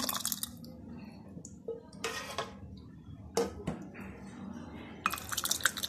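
Hot milk with chopped dates and nuts poured from a vessel into a ceramic mug, in a few short splashy pours, with light clinks of dishware against the mug.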